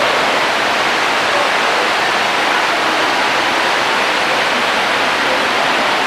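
A loud, steady rushing noise with no breaks or distinct strikes, covering the room sound.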